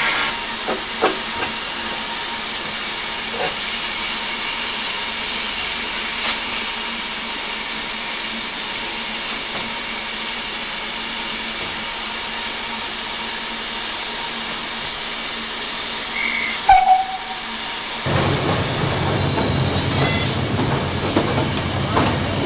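Steam hissing steadily on the footplate of BR Standard Class 2 2-6-0 locomotive No. 78022 while it stands, with a few light clicks. About three quarters of the way in there is a short whistle toot, and from there on the louder, fuller rumble of the locomotive on the move takes over.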